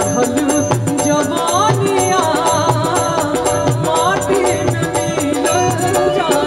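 Live Bhojpuri folk song: a woman sings a wavering melody into a microphone over a band with a steady hand-drum beat.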